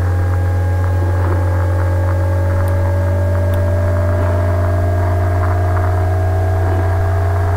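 Loud steady low electrical hum on the recording, with fainter higher tones that slowly rise in pitch.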